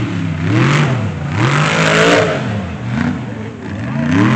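Mega truck's engine revving hard and dropping back again and again, about four rising-and-falling surges, the biggest near the middle, each peak with a rasping rush of noise.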